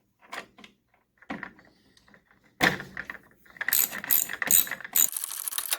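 A few knocks and a sharp loud clack, then a socket ratchet clicking in quick runs from about halfway on as the battery tie-down bolt is tightened.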